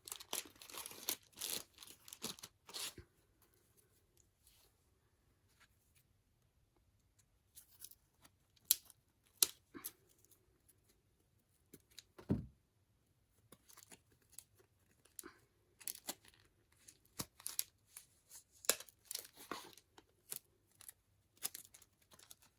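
Packaging around a bundle of photocards being crinkled and torn open in short, irregular bursts, with a pause of a few seconds near the start. A soft thump about twelve seconds in.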